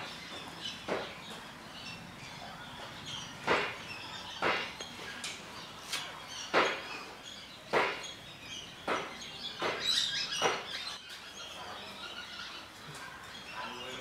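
Outdoor ambience with birds chirping and about nine short, sharp clicks or knocks spread irregularly, a second or two apart.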